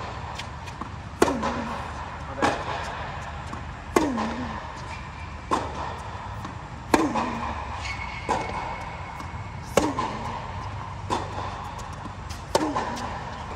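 Tennis rally: racket strings striking the ball in an even rhythm, a loud close hit about every three seconds with softer far hits and bounces between. Each hit echoes under the air dome, over a steady low hum.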